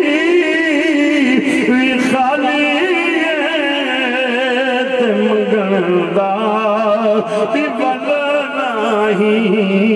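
A man singing a Punjabi devotional verse in a chant-like style, drawing out long, wavering held notes.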